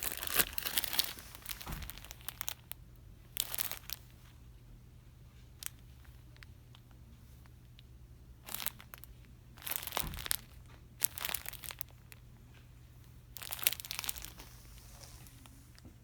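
Crinkling and rustling of handled packaging in short separate bursts, about six of them, over a faint low steady hum.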